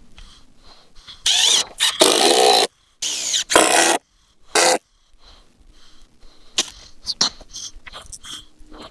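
Power drill driving screws into pressure-treated pine decking boards in several short loud bursts, followed by scattered light clicks and knocks.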